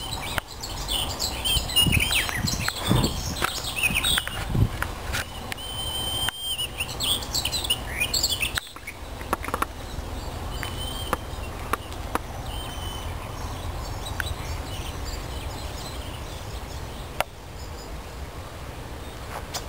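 Several songbirds singing and chirping from the trees, many overlapping whistled phrases at first, thinning to scattered calls after about nine seconds, over a steady low rumble.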